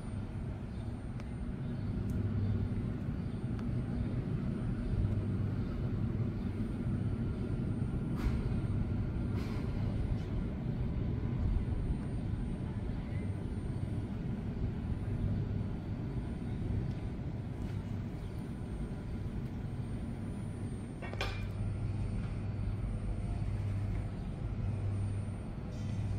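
New York City subway trains standing in the station, their equipment giving a steady low hum and rumble. A few faint clicks, and one brief hiss about three-quarters of the way through.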